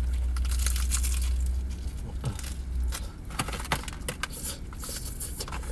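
Crunching bites and chewing of crispy fried chicken breading: a string of irregular crackly crunches, over a low hum that fades out about halfway.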